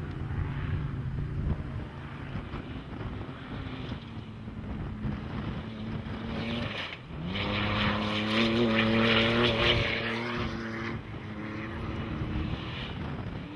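Off-road race truck engine at high revs going past. Its note climbs about seven seconds in, is loudest a second or two later, and then fades away.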